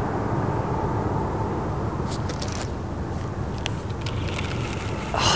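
Airplane flying low overhead: a steady low engine rumble that slowly fades, with a few light clicks in the second half.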